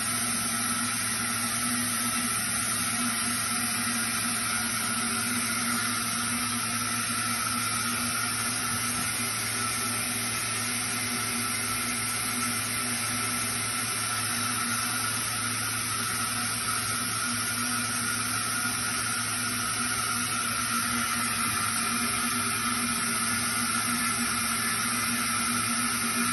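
Steady industrial machinery hum with an even hiss, several low and mid hum tones held unchanged, with no strokes or cycles.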